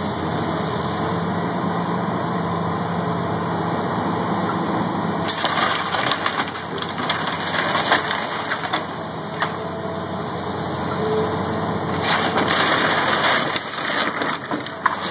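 CAT hydraulic excavator engine running steadily while its bucket crushes and pulls apart the wooden debris of a demolished house. Wood cracking and splintering begins about five seconds in, with a heavier spell of crunching near the end.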